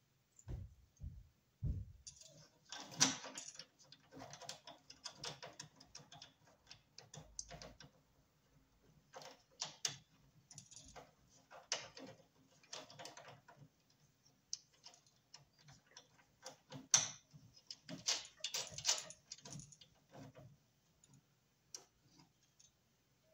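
Small metal parts and tools being handled during electrical work: irregular clicks, taps and light rattles, with a few dull low thumps in the first two seconds.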